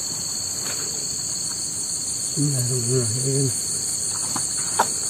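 Steady, high-pitched chorus of insects, with a man's brief low murmur in the middle.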